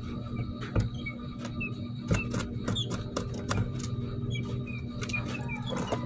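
Guinea fowl keets scratching and pecking about on grit in a cardboard box: an irregular scatter of small taps and scuffs, with a few faint, short, high peeps.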